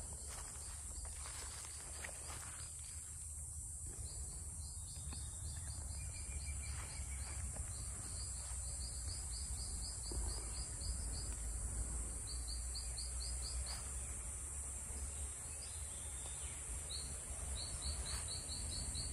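Tropical forest insects with a steady high-pitched drone, and runs of quick repeated chirps starting and stopping throughout, over a low steady rumble.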